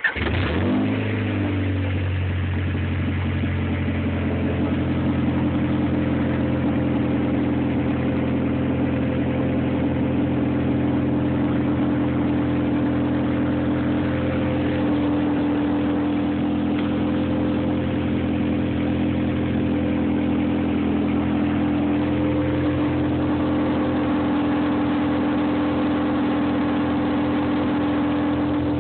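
Honda B16B 1.6-litre DOHC VTEC four-cylinder engine catching just after cranking, flaring briefly and dropping back within about two seconds, then idling steadily.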